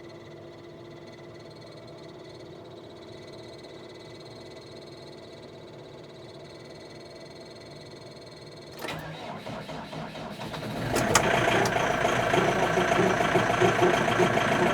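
Cold tractor engine, warmed only by its block heater, cranking on the starter for about two seconds before catching and running loudly; the start is a poor, struggling one. A steady faint hum comes before the cranking.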